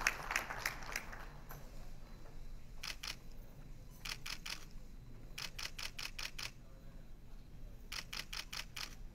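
Camera shutters firing in rapid bursts: four separate runs of quick clicks, each several frames long, from still cameras. In the first second a round of applause dies away.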